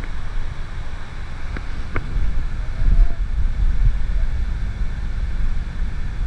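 Wind buffeting an action camera's microphone: an uneven low rumble that rises and falls in gusts, with a couple of faint clicks about a second and a half and two seconds in.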